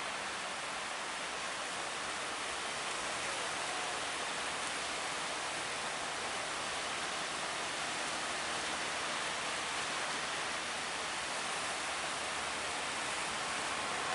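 Steady rush of breaking sea waves.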